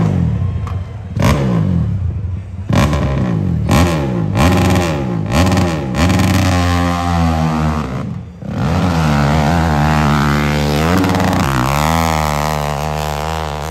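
Dirt bike engine blipped about eight times in quick short revs, then held wide open as the bike launches up a steep hillclimb, rising in pitch with a brief drop about eight seconds in before pulling again. It then runs high and steady and slowly fades as the bike climbs away.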